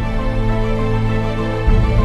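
Slow background music of long held chords, with a new bass note coming in near the end.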